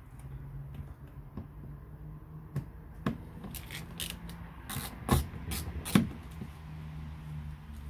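Plastic clicks and scraping as a screwdriver pries at the bottom edge of a VW Passat B6 front door trim panel, with two sharp snaps about five and six seconds in as the panel's clips let go.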